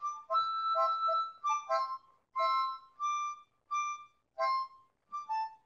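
A tune played on a musical instrument, one steady held note after another with short silences between them.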